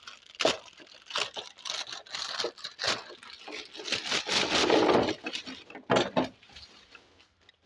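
A toy package being torn open: irregular crinkling and tearing rustles with sharp clicks.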